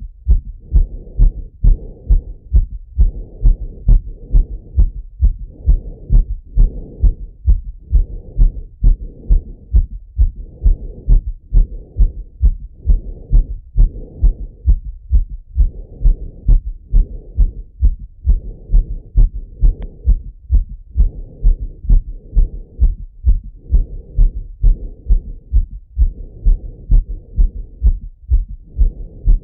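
A man's heartbeat heard through a Littmann stethoscope chest piece: a steady, quick rhythm of low thuds, with a soft rushing noise swelling and fading between beats. The heart is still beating fast as it recovers from a run.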